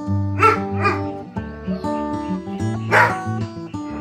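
A dog barking: two barks close together near the start and one more about three seconds in, over light background music.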